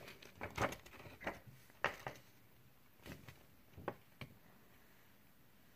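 A handful of light clicks and taps from small plastic toy parts being handled, spaced irregularly over the first four seconds or so, then quiet.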